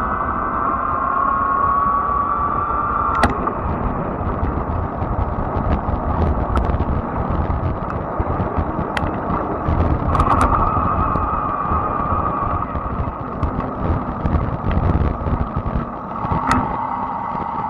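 Fat-tire electric bike riding on pavement: a high motor whine that rises slightly, cuts off about three seconds in with a click and comes back around ten seconds, over a low rumble of wind and tyres and scattered sharp clicks and rattles.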